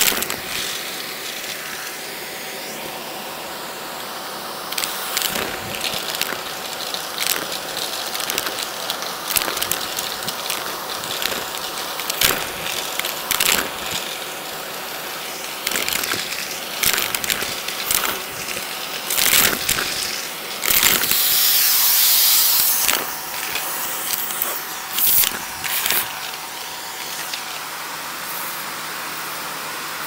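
Handheld vacuum cleaner running with a steady hiss and whine while it sucks up coins and flat glass gems from carpet: frequent clicks and rattles as pieces clatter into the nozzle, with a louder rush of suction a little past two-thirds of the way through.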